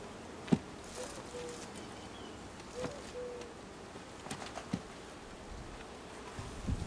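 Honeybees buzzing around an open hive, with single bees humming past now and then. Hive frames being shifted and lifted give sharp clicks and knocks, the loudest about half a second in and a cluster near the end.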